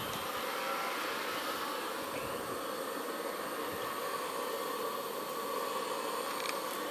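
Steady rushing hiss with a faint steady hum and no beat: the burner firing under a model steam boiler as it heats toward steam pressure.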